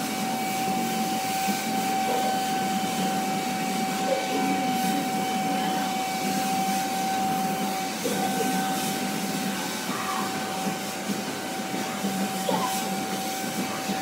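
Canister vacuum cleaner running steadily with a constant whine, its hose nozzle being worked through an Alaskan malamute's thick coat to pull out loose fur.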